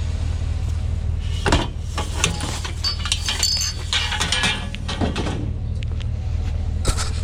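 Scrap being rummaged through by hand: irregular clinks, rattles and knocks of small metal and glassy pieces, over a steady low hum from a vehicle engine running.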